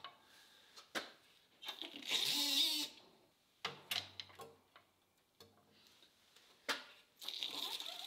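Aluminium plugs being pressed into holes in an aluminium block with a shop press: sharp clicks and knocks of the ram and parts, and a harsh scraping squeal about two seconds in as a plug is forced in, with a fainter one near the end.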